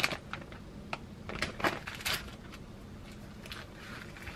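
Plastic packaging crinkling and rustling as a small chocolate cake is handled and unwrapped by hand, in short bursts of a few crackles, busiest around one to two seconds in.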